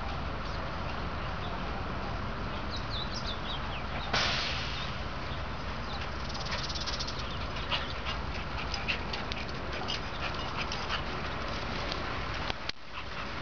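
A dog's brief vocal sounds over a steady outdoor background hiss, with a few short high chirps about three seconds in.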